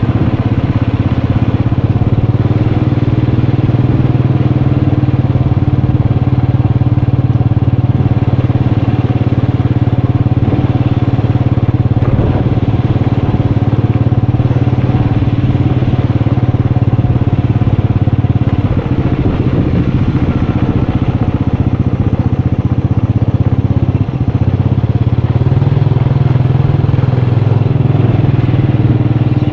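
Motorcycle engine running steadily during a ride, its note lifting slightly near the end.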